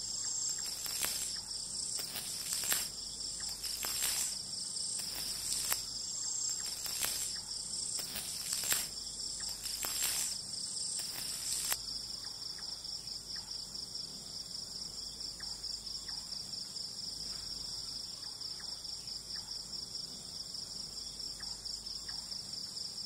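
Steady high chirring of crickets, a fast continuous trill. Irregular clicks, about one a second, sound over it and stop about halfway through.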